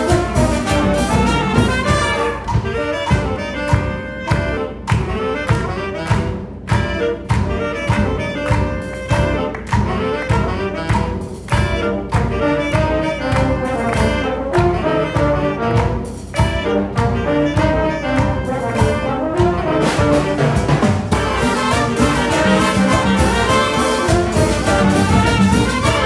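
Wind band playing live: trumpets, clarinets, saxophones, tuba and percussion with congas and güiro, over a steady beat. The full band fills out and gets louder about twenty seconds in.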